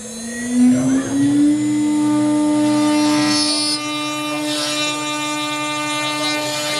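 CNC router spindle, water-cooled and run by a variable frequency drive, spinning up with a whine that rises in pitch over the first second and a half, then holds a steady whine at full speed.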